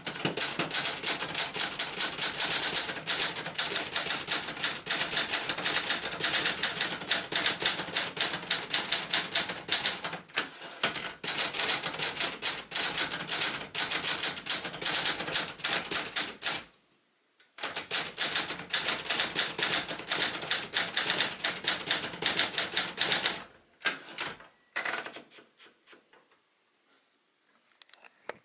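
1977 Adler J2 portable typewriter being typed on fast: a dense run of keystroke clacks, broken by a pause of about a second past the middle. Typing resumes, thins to a few scattered clicks and stops a few seconds before the end.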